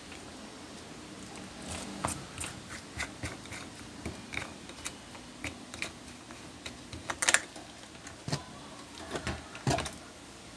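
Irregular plastic clicking and rattling as a stand fan's plastic blade is twisted and pulled off the motor shaft, the wire guard rattling against it, with a couple of sharper clacks about seven and nine and a half seconds in.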